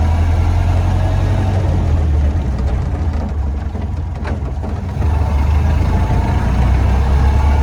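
1931 Ford Model A's four-cylinder engine running steadily under way on the road, a deep drone that drops off about two and a half seconds in and picks back up about five seconds in. There is a short click near the middle. The owner takes this run as proof the misfire is cured.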